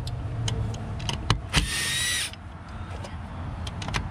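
Cordless driver motor running in one short burst of under a second, about a second and a half in, with a steady whine as it backs out a screw holding the alternator's plastic rear cover. A few sharp clicks come just before it.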